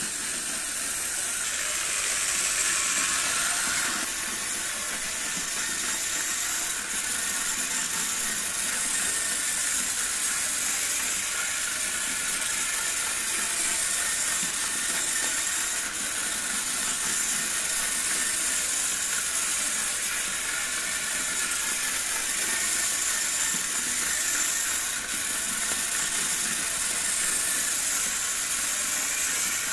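Märklin H0 model locomotives running on three-rail metal track: the motor whirs and the wheels rattle along the rails in a steady hiss.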